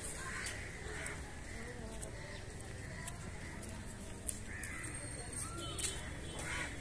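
Crows cawing several times over a low murmur of distant voices, with one sharp click about four seconds in.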